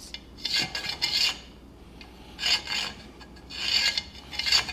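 A marking tool scratching along the edge of a speed square on a steel plate held in a vise, scribing a cut line in several short strokes.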